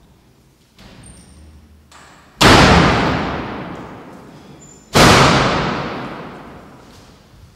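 Two loud, sharp bangs about two and a half seconds apart, each ringing out and dying away over about two seconds in the echo of a large hall.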